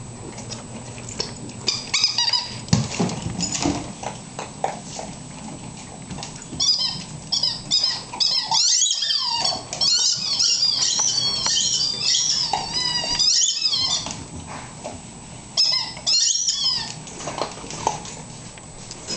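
Dog at play making bursts of quick, wavering high-pitched squeals and whines: a short run a few seconds in, a long one from about seven to fourteen seconds, and another near the end.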